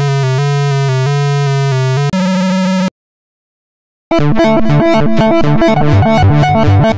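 Voltage Modular software synthesizer patches playing in turn. First comes a sustained buzzy tone whose upper notes step in a pattern, then a short different tone, then about a second of silence. About four seconds in, a rhythmic sequenced pattern of bass and higher notes begins.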